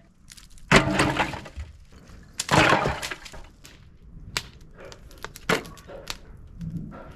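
Two loud crashing, cracking bursts, the first about a second in and the second a little before the midpoint, followed by a few sharper knocks and clatter.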